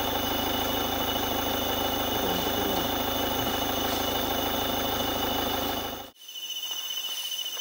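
Safari jeep's engine idling steadily. About six seconds in it cuts off abruptly, and a steady chirring of crickets takes over.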